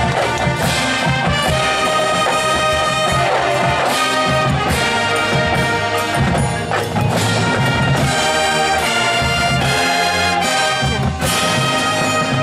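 Marching band playing: brass holding loud sustained chords over drum and pit percussion strokes.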